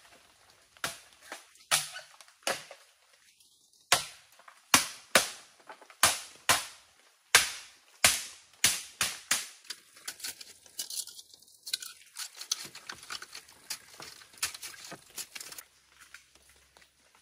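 A long irregular series of sharp knocks from hand work at the ground, each with a short ring-out. There are about a dozen heavy strikes in the first half, then quicker, lighter ones after about ten seconds, stopping near the end.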